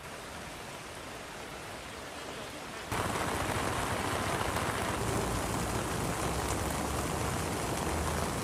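Steady noise of heavy rain and running floodwater. About three seconds in it jumps abruptly louder and fuller, then stays steady.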